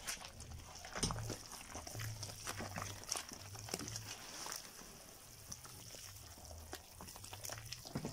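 Hands squeezing and mixing sticky bread dough in a plastic tub: irregular wet squelches and slaps as flour is worked into a batter of sugar, butter, eggs and water.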